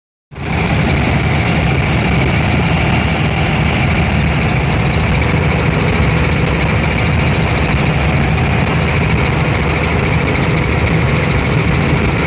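Robinson R44 Raven I helicopter in flight, heard from inside the cabin: the loud, steady drone of its six-cylinder piston engine and rotors, with a rapid even pulsing running through it. It cuts in suddenly just after the start.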